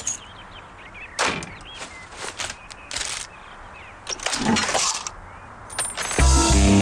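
Cartoon sound effects of a cash register and a food tray on a counter: several short clacks, then a longer clatter about four seconds in. A guitar music cue starts near the end.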